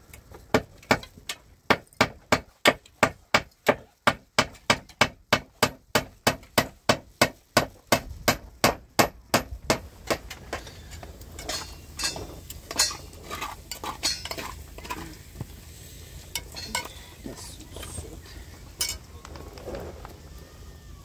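Sharp, even knocking, about three strikes a second, for roughly the first ten seconds. The strikes then give way to scattered lighter clinks and knocks.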